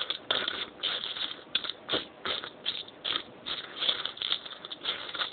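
Plastic Lego pieces clicking and rattling as they are handled and pulled apart: a string of short, irregular clicks, about two or three a second.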